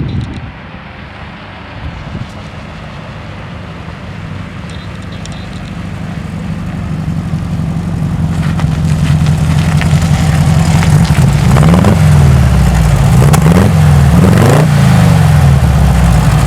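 Air-cooled VW flat-four engine running, getting steadily louder. In the second half the revs dip and rise several times. It still sounds a little off, though better.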